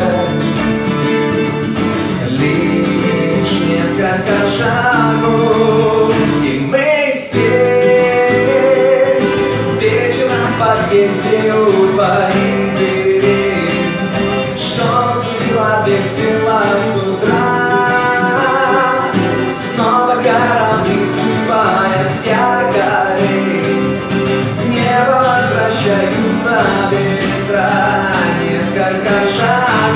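Live acoustic duo: two acoustic guitars strummed and picked while a man sings, with a brief break about seven seconds in.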